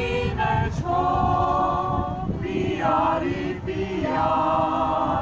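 A group of voices singing together unaccompanied, in long held notes that step from pitch to pitch.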